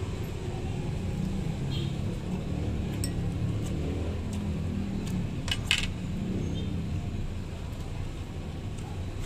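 Metal fork and spoon clinking against a plate, with a sharp clatter a little past halfway the loudest, over a steady low rumble.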